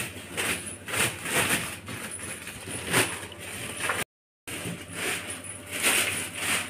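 Irregular scuffing, rustling and clicks of people handling a dog on a hard wet floor, with a plastic sack rustling as it is lifted. The sound cuts out completely for a moment about four seconds in.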